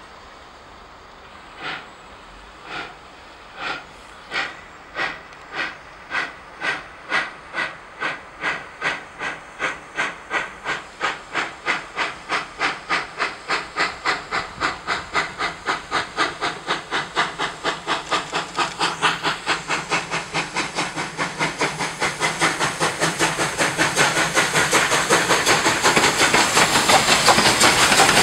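PKP Class Ol49 two-cylinder steam locomotive working hard and picking up speed: its exhaust chuffs begin about one a second and quicken steadily to several a second, growing louder as it approaches. Near the end the beats merge with a steady hiss of steam from the cylinders and rolling noise as it passes close by.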